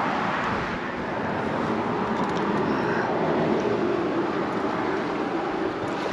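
Steady road noise of traffic passing on the bridge, swelling about halfway through as a vehicle goes by.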